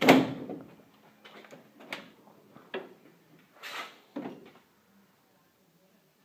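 Steel tool cabinet drawers being handled: a loud thud of a drawer shutting right at the start, then a few lighter knocks and short sliding scrapes, ending about four and a half seconds in.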